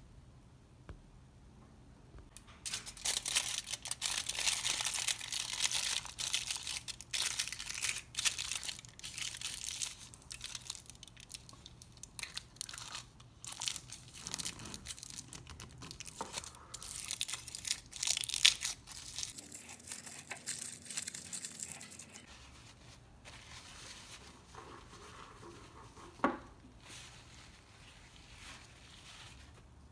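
Aluminium foil crinkling and tearing as it is pressed over the mouth of a glass jar and a metal screw lid is twisted on over it. The crinkling stops about three quarters of the way through, leaving quieter handling and one sharp knock near the end.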